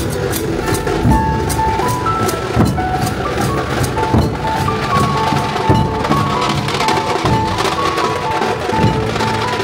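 A dhol-tasha troupe playing: large barrel-shaped dhol drums beaten with sticks in a steady driving rhythm, sharp cracking strokes on top, and a melody of short held notes above the drumming.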